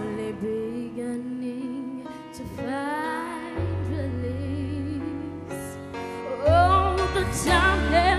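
A young girl singing solo into a microphone over instrumental accompaniment, her voice sliding up into long held notes and growing louder about two-thirds of the way in.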